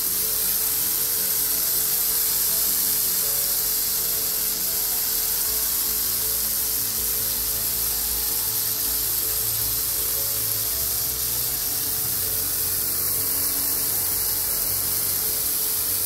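Water spraying under pressure in a thin jet from a puncture in a Parkside garden hose: a steady high hiss. Faint background music sits underneath.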